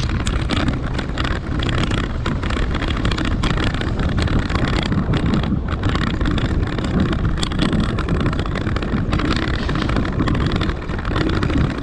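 Wind buffeting the microphone of a camera carried by a cyclist riding along: a steady, deep noise without clear tones.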